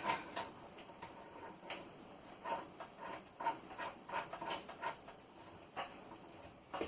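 Irregular light clicks and rubbing from handling a washing machine hose and its threaded coupling as it is fitted back on after a washer change.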